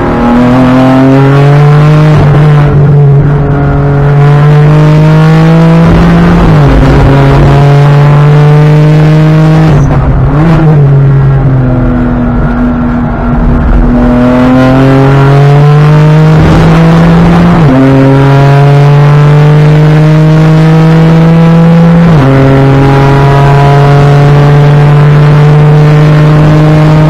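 BMW M4 GT4 race car's twin-turbo straight-six at full throttle, heard from inside the cockpit: the note climbs and drops sharply at each quick upshift, three times. About ten seconds in the engine lets off and runs lower for a few seconds, then pulls hard again.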